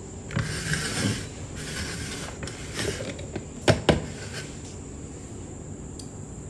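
Handling of a glass blender jar and mug on a wooden board: rustling and scraping, then two sharp knocks in quick succession about halfway through as the jar is moved, followed by quiet.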